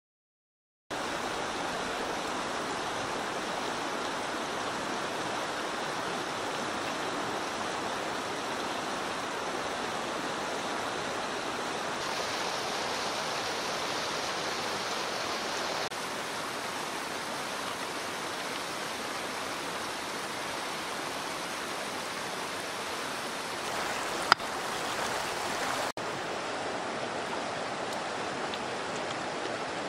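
A shallow river rushing and tumbling over stones in a steady rush that starts about a second in. One sharp knock stands out above the water about three-quarters of the way through.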